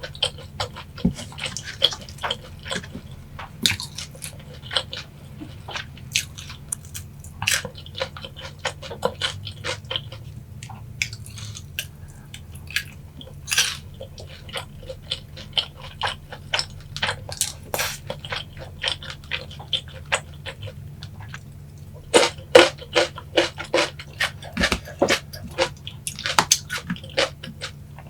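A person chewing boneless yangnyeom (sweet-spicy sauced) fried chicken: sticky, wet mouth smacks and crunches come as irregular sharp clicks, with a denser run of louder bites about three-quarters of the way through.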